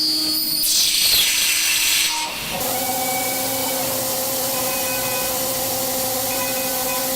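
CNC machine working on an engine block: a loud hiss for about the first two seconds, then, after a brief dip, a steady machine whine of several held tones over a continuous hiss.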